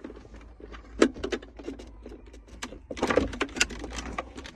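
Plastic clicks, knocks and rattles from handling and unplugging the wiring-harness connectors on the back of a factory car radio unit. There is one sharp click about a second in and a flurry of rattling near the end.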